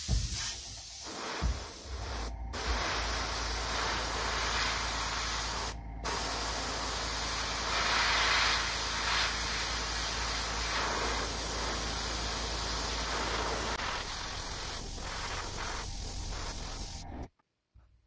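Airbrush spraying paint: a steady hiss of air and paint, broken by two short pauses in the first six seconds, then stopping about a second before the end.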